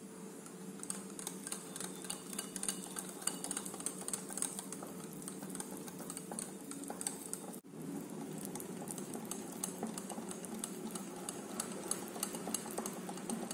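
Stainless steel wire whisk beating flour into thick cake batter in a glass bowl: fast, continuous wet stirring with many small clicks of the wires against the glass, over a steady low hum.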